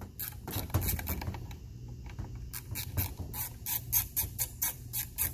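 Small ratchet wrench with a T30 Torx bit clicking rapidly as a screw is backed out, the screw that holds the speed sensor in a crankcase breather. The clicks come in two quick runs, about six a second, with a short pause between them.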